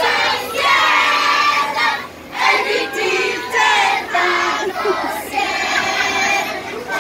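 A group of children singing together, with a short pause about two seconds in.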